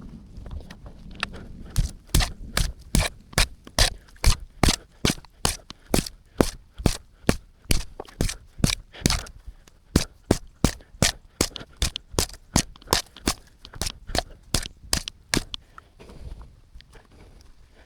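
Shovel blade striking rocky dirt over and over in a steady rhythm, about two to three sharp strikes a second, starting about two seconds in and stopping near the end.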